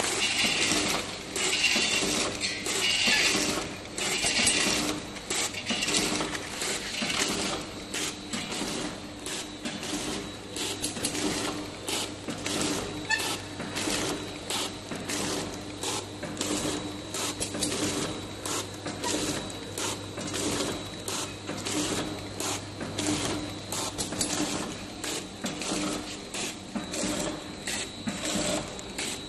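Vertical form-fill-seal packing machine running, with repeated mechanical clacks over a steady machine hum.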